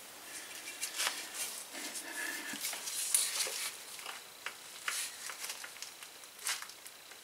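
Scattered faint clicks and light metal taps from a go-kart engine's cylinder head being handled and lined up over the cylinder studs.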